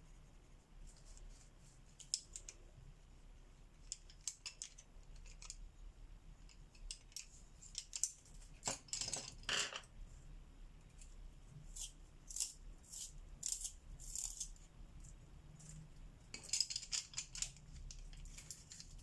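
Coloring tools clicking and rattling against one another in light, scattered clicks, with a denser clatter about halfway through and again near the end.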